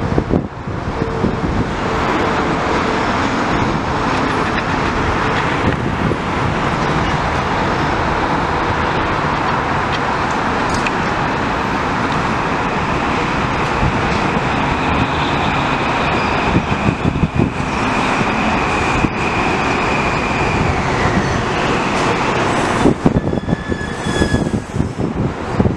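A Metro-North M8 electric multiple-unit train pulling into the station and slowing to a stop, with a steady loud rumble of wheels and running gear. A high whine is held for several seconds in the second half and steps down in pitch as the train comes to rest. Short high tones and some clatter come near the end.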